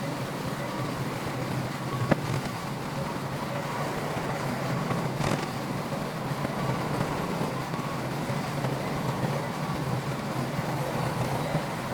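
Heavy earthmoving machinery running steadily: a dozer's or dump truck's diesel engine with a low, even drone. A single sharp metallic clank comes about two seconds in, and a fainter knock a few seconds later.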